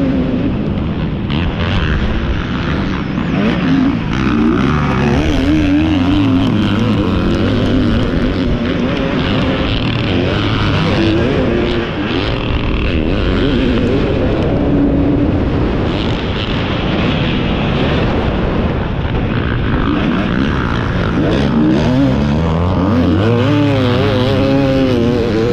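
450-class motocross bike engine heard from an onboard camera, its pitch rising and falling over and over as the rider works the throttle and shifts through the gears at race speed, with a noisy rush of wind and track noise underneath.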